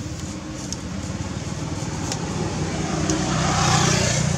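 Low rumble of a passing motor vehicle, growing steadily louder and peaking near the end.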